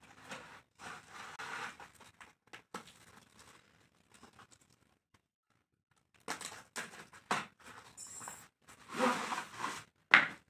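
A taped cardboard box being torn and cut open, with cardboard scraping and plastic wrap crinkling in irregular bursts, broken by about two seconds of near silence midway. The loudest rustling comes in the last second or two, as the plastic-wrapped stand is pulled out.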